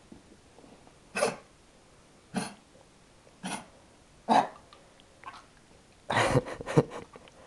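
Small dog giving short, sharp barks, one about every second, then a quick run of several barks near the end, in an excited state.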